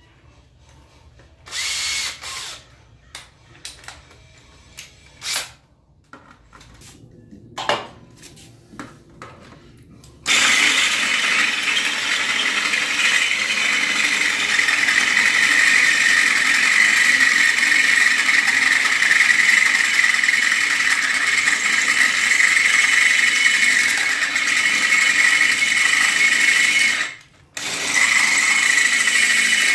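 Handheld power drill with a half-inch bit enlarging pilot holes in a metal differential mounting bracket. A few handling knocks and clicks come first. About ten seconds in, the drill starts and runs steadily with a high-pitched cutting whine, stops briefly near the end, then starts again.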